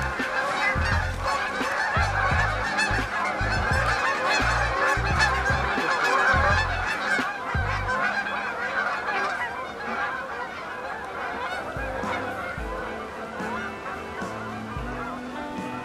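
A large flock of Canada geese honking, many birds calling over one another at a distance, the clamour thinning out after about halfway. Gusts of wind buffet the microphone.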